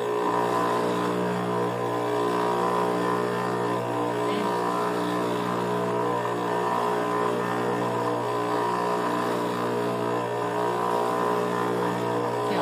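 Steady electric hum of a Juki industrial sewing machine's motor running idle, switched on but not stitching.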